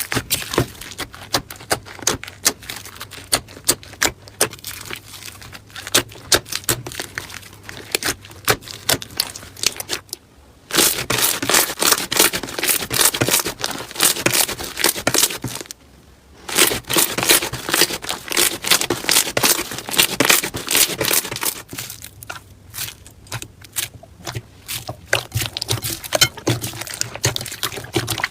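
Slime being squeezed and worked by hand, making dense crackling and popping clicks. The sound drops away briefly about ten and sixteen seconds in, then resumes.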